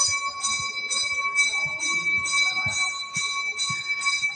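A temple bell ringing steadily, struck about twice a second, its tones ringing on between strikes.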